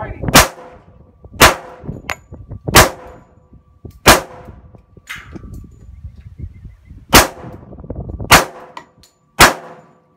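Sig Sauer 1911 pistol firing .45 Auto 230-grain full metal jacket rounds one-handed: seven loud shots, roughly one a second, with a pause of about three seconds midway and a weaker bang about five seconds in.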